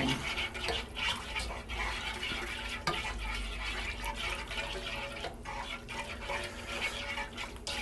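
Plastic whisk stirring a thin red-wine sauce in a nonstick pan: a steady swishing of liquid. A butter-and-flour paste (beurre manié) is being whisked in to thicken it.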